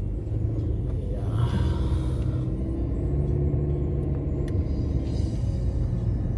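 A car's engine and tyres make a steady low rumble, heard from inside the cabin as it drives through a parking lot.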